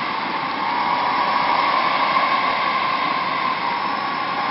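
Large audience applauding and cheering, a loud, steady, unbroken wash of clapping and voices.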